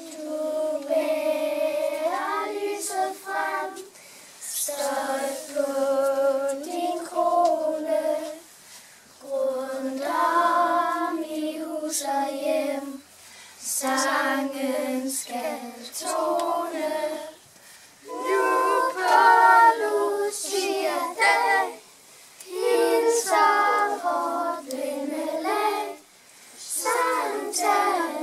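Children's choir singing unaccompanied, in sung phrases of a few seconds each with short pauses for breath between them.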